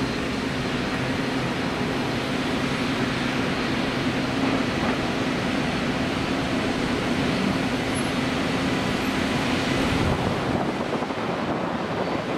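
An Airbus A380-800's four Rolls-Royce Trent 900 jet engines running on the takeoff roll, heard across the airfield as a steady rush with a low hum that fades about ten seconds in.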